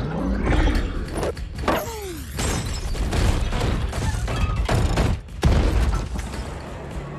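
Animated film sound effects: a rapid string of heavy crashes and thuds over a deep rumble, with sweeping falling sounds about two seconds in. The loudest smash comes about five and a half seconds in, as something crashes into a room in a cloud of dust.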